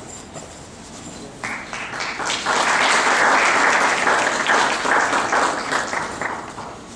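Audience applauding: clapping starts about a second and a half in, builds to full strength, then thins out and fades near the end.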